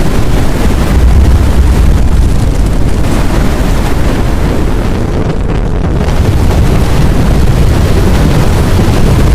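Strong-wind sound effect of the tornado kind: a loud, continuous low rumble of rushing air with a rough, gusting texture. The high hiss thins briefly a little past halfway.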